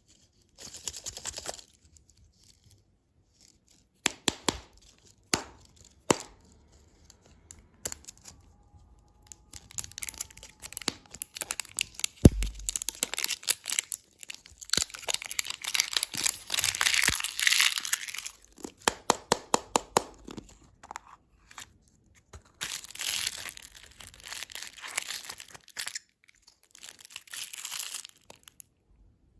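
Candy packaging being unwrapped close up: plastic and paper wrappers tearing and crinkling in bursts of dense crackling, with short pauses between. One sharp knock sounds about twelve seconds in.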